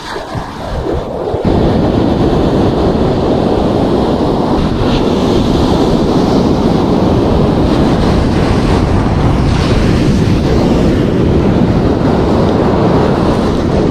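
Wind buffeting the microphone over surf breaking on a beach, a steady noise that grows louder about a second and a half in.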